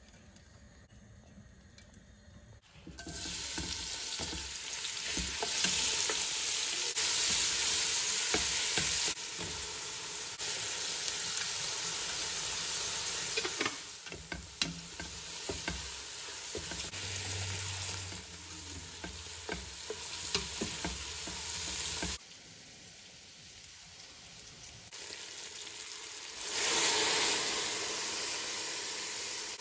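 Sliced onions sizzling in hot desi ghee in a stainless steel pot, with a spatula scraping and clicking against the pot as they are stirred. The first few seconds are quiet, the sizzle starts about three seconds in, and it grows loud again near the end.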